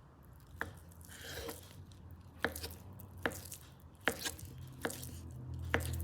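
A knife chopping onto a cutting board: about six sharp, irregularly spaced knocks, with a brief scraping sound about a second in.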